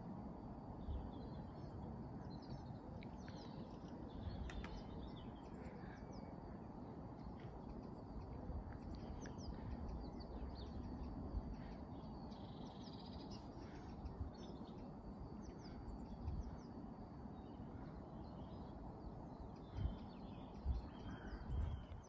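Birds chirping and calling over a faint, steady low rumble of outdoor background noise. A few soft low thumps come near the end.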